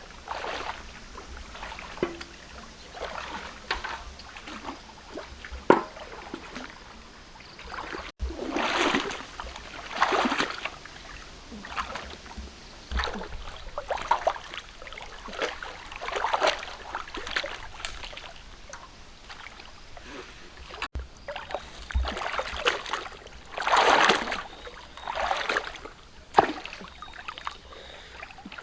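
River water splashing and sloshing in irregular swishes, one every second or two, as it is stirred by paddling or wading.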